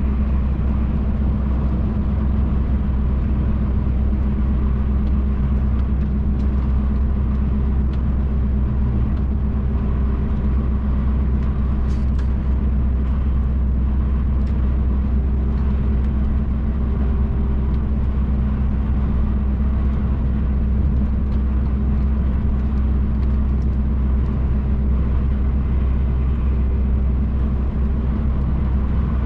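Inside the cab of a MAN TGX truck cruising at steady speed: the diesel engine drones evenly under the road and tyre rumble, with no gear change or change in revs.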